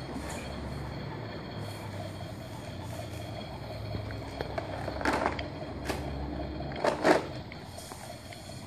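Plastic toy kitchen lid and toy dishes clattering as a child handles them, a few sharp knocks in the second half, the loudest two close together, over a steady low hum.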